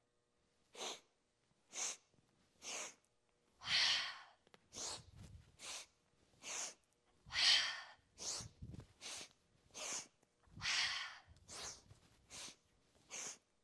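A woman doing a fast breathing exercise: quick, sharp breaths in through the nose and out through the mouth, about one a second, with a bigger, fuller breath every few seconds.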